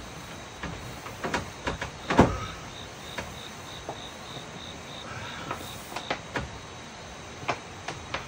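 Wooden plank bed knocking and creaking, with blanket rustling, as a person settles down under a blanket; the loudest knock comes about two seconds in. Crickets chirp in the background, one pulsing about four times a second from about two to six seconds in.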